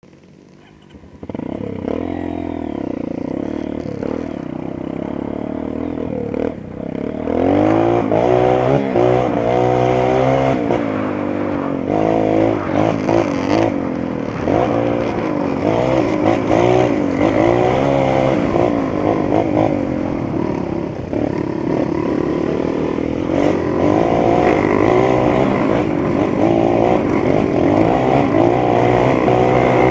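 Honda CRF230 trail bike's single-cylinder four-stroke engine running under way, starting about a second in, its revs rising and falling over and over as the bike is ridden.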